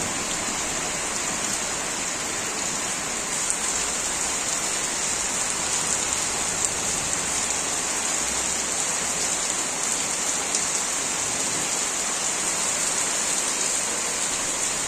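Heavy rain pouring down steadily, a dense, even hiss of drops falling on wet ground and foliage.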